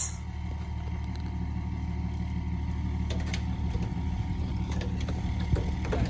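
A vehicle engine idling steadily, with a few faint clicks and knocks.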